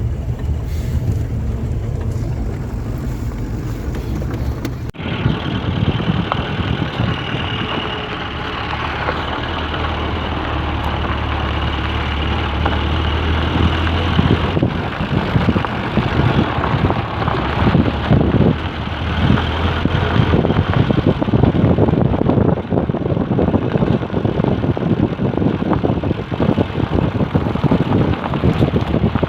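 Motor vehicle driving, with a steady low engine drone. From about halfway through, irregular bumping and rattling grows.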